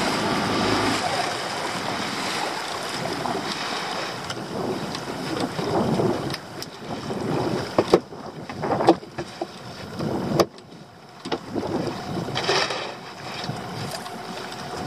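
Wind buffeting the microphone and the sea washing against a small open boat, with a few sharp knocks in the second half as gear is handled on deck. A steady motor hum is heard for about the first second, then stops.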